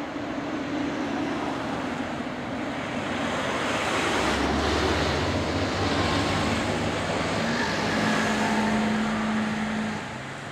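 Bombardier CRJ700 regional jet's engines: a steady rushing noise with a low hum, which grows louder a few seconds in and eases off near the end.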